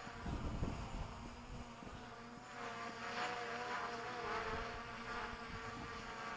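DJI Mavic Pro quadcopter buzzing as it hovers and flies, its propeller tones wavering slightly in pitch as the motors work against strong wind. Low gusts of wind rumble on the microphone in the first second or two.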